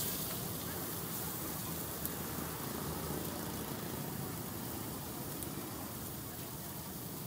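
Shredded cabbage and greens sizzling steadily on a large hot flat steel wok just after being tipped in, over a low steady rumble.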